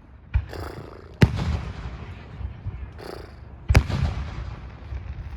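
Aerial fireworks going off: three sharp bangs, a small one just after the start and two loud ones about a second in and near four seconds in. Each bang is followed by a rolling low rumble.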